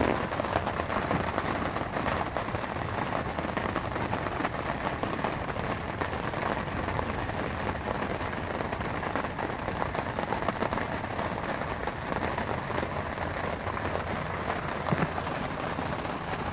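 Rain falling on the cotton duck canvas of a Kodiak Canvas Flex-Bow VX two-person tent, heard from inside: a steady, dense crackle of countless drop impacts.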